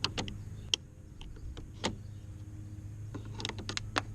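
Flathead screwdriver prying at the small plastic cover inside a Ford F-150's interior door handle: a string of sharp clicks and taps, the loudest about two seconds in and a cluster near the end, over a steady low hum.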